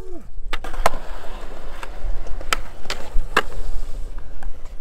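Skateboard on concrete: urethane wheels rolling, broken by several sharp clacks of the board.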